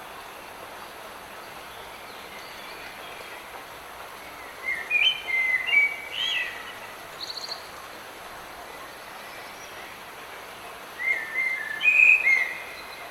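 Light rain falling as a steady hiss, with a songbird singing two bursts of quick, gliding phrases, one about five seconds in and another near the end.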